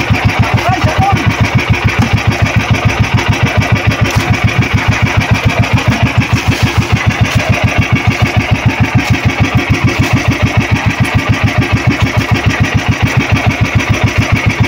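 Outrigger boat's engine idling with a steady chugging beat, about five beats a second.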